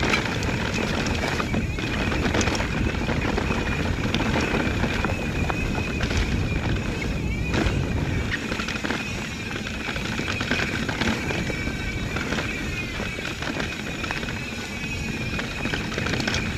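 Mountain bike riding over a rough, rooty trail: steady tyre and rolling noise with scattered clicks and rattles from the bike, and a thin, slightly wavering high tone held throughout.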